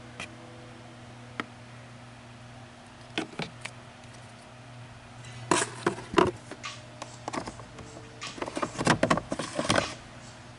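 Hard plastic clicks and rattles of the Corolla's glove box and cabin filter housing parts being handled and clipped back into place: a few single clicks, then two busier clusters of clicking in the second half, over a faint steady low hum.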